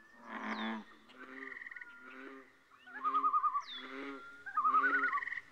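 A chorus of frogs croaking in short, repeated pulsed calls, with higher trills and a few sharply falling whistled calls from other frogs or birds over them.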